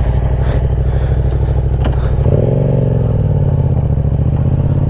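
Yamaha YZF-R7's parallel-twin engine running through a Yoshimura R77 exhaust, steady at first, then rising in pitch a little over two seconds in and easing back to a steady run.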